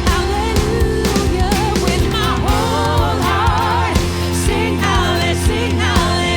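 Worship band music: a lead voice sings with a wavering vibrato over sustained low chords, with regular drum hits underneath.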